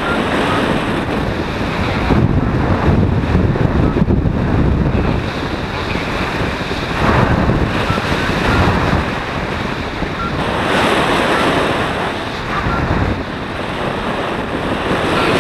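Loud wind noise from the airflow of paraglider flight buffeting an action-camera microphone, a rushing roar that swells and eases in gusts every few seconds.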